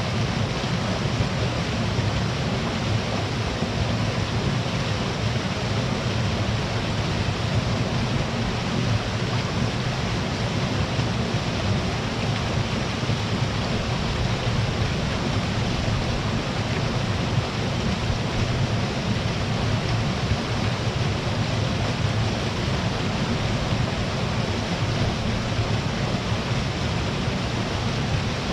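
Small mountain-stream waterfall with water rushing and splashing in a steady, even roar.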